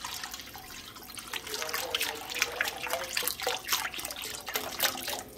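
Water poured in a steady stream into liquid in a metal wok, splashing and gurgling; the pour stops shortly before the end.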